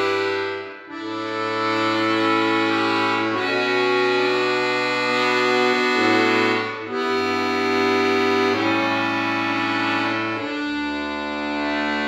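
Piano accordion played solo: slow, sustained chords over held bass notes, with short breaks between phrases about a second in and again near seven seconds.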